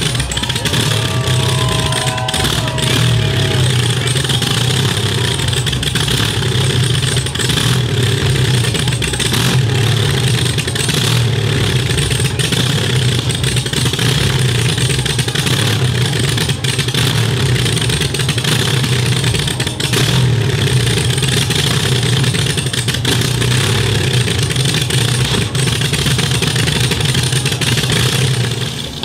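Classic wooden motorboat's inboard engine running steadily at close range, a deep, even engine note over a wash of hiss.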